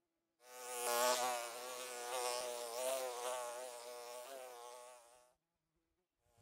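A steady mechanical buzz of small motors, its pitch wavering up and down. It cuts in abruptly about half a second in and cuts off suddenly a second before the end.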